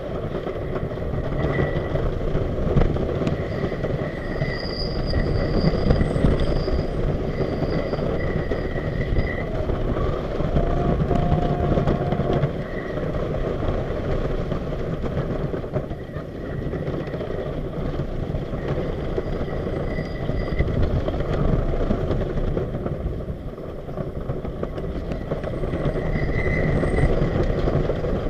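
Custom Coasters International wooden roller coaster train running over its wooden track: a continuous loud rumble and clatter of the wheels, with high wheel squeal that comes and goes.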